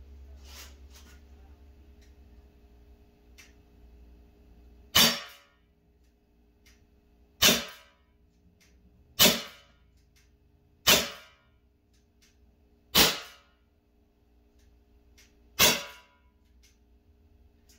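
Umarex SA10 CO2 pellet pistol firing six single shots at an uneven pace, roughly two seconds apart, each a sharp pop that dies away quickly.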